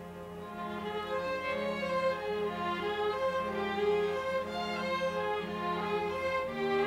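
String chamber orchestra playing a classical piece: violins carry a melody over a low note repeated in even pulses, the music swelling during the first second.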